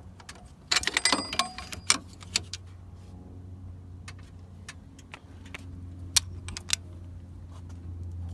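Metal hand tools and parts clinking and rattling, with a dense clatter about a second in and scattered single clicks after, over a steady low hum.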